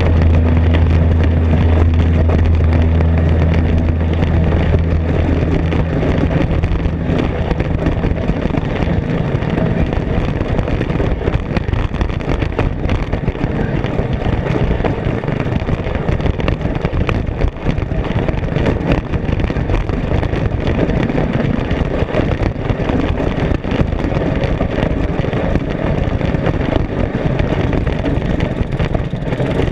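Off-road race vehicle driving at speed: engine noise mixed with wind and constant clatter from rough ground. A steady low hum is heard for the first several seconds, then fades out.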